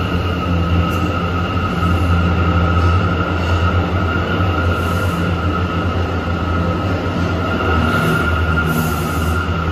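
New York City Subway train running with a steady low rumble, a continuous high whine over it.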